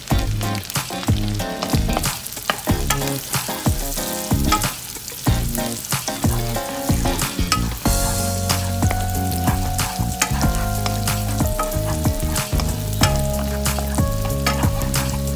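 Chopped garlic and sliced red onion sizzling and crackling in hot oil in a wok, stirred and pushed around with a wooden spatula.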